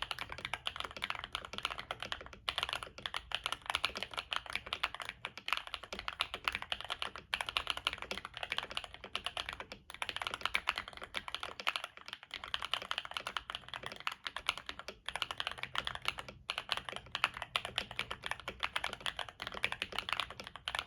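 Continuous fast typing on a KBD67 Lite mechanical keyboard with stock Akko Cream Yellow Pro linear switches, FR4 plate, tape mod and case dampening, and Cherry-profile double-shot PBT keycaps: a dense run of keystroke clacks with several brief pauses.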